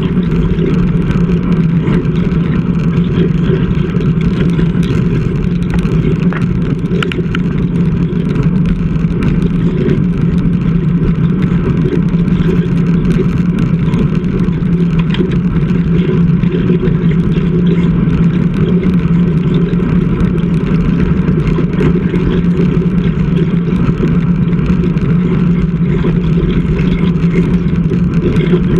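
Wind and road noise on a bicycle-mounted action camera's microphone during riding: a loud, steady rush with a low drone underneath.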